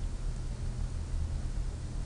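Steady low hum with a faint hiss of background noise; no distinct event.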